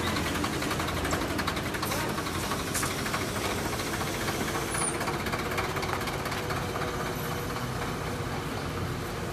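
An engine idling steadily, with a fast, even ticking running through it.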